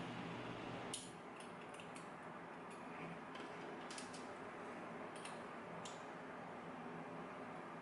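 Faint small metallic clicks and ticks as a pin-tumbler lock is taken apart by hand, its core and pins being worked loose. The clicks come scattered, a handful in all, over a low steady hum.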